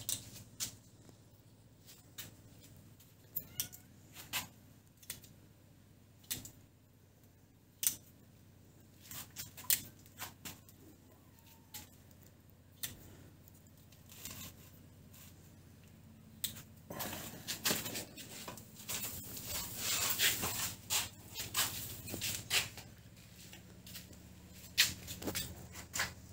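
Fishing-net meshes being cut one by one with a utility knife: short sharp snicks with gaps between them. From about two-thirds of the way through comes a busier stretch of rustling and snicking as the netting is pulled and cut.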